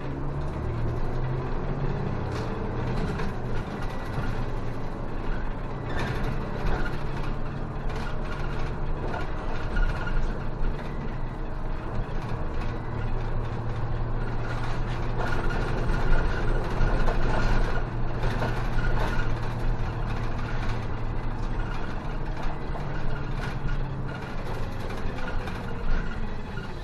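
City bus engine running as the bus drives along a street, heard from inside the cabin at the front: a steady low hum with its pitch gliding up and down a little with speed, over road noise and light rattles of the bus body.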